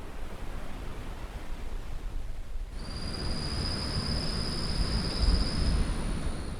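Steady rush of Caribbean surf, with a deeper rumble swelling in the second half. About three seconds in, a high, steady insect whine, such as a cicada's, starts and holds.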